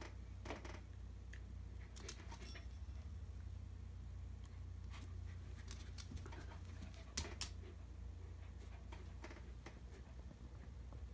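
Shetland sheepdog's claws clicking and tapping on a hard laminate floor as it shifts and turns in place: scattered light ticks, with one sharper tap about seven seconds in, over a low steady room hum.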